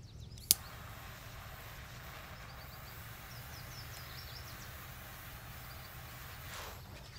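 Mini blowtorch clicking alight about half a second in, then hissing steadily as its jet flame is held to a bundle of dried sage to light the smudge stick.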